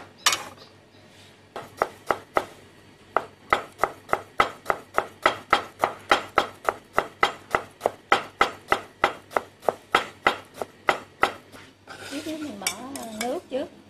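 Cleaver chopping on a wooden cutting board, mincing garlic and chilli and then cutting shredded carrot: quick, even chops at about four a second, after a short pause just after the start. A voice comes in near the end.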